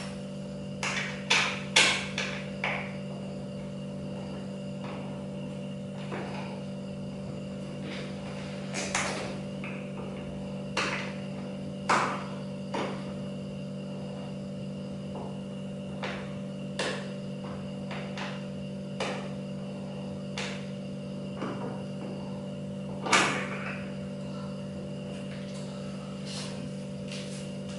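Irregular clicks and knocks from an ergonomic office chair's plastic frame and headrest parts being handled and fitted during hand assembly, over a steady low hum.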